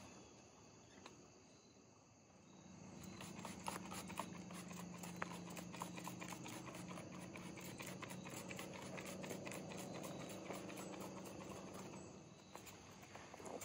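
Trigger-pump spray bottle worked over and over: a rapid run of faint clicks and spritzes from about two seconds in. A faint steady low hum runs under most of it and fades near the end.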